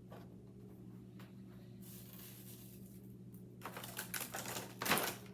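A Mylar bag crinkling and dry, crisp pieces of freeze-dried chicken clattering as they are pushed into it by hand, busiest and loudest in the last second and a half. A steady low hum runs underneath.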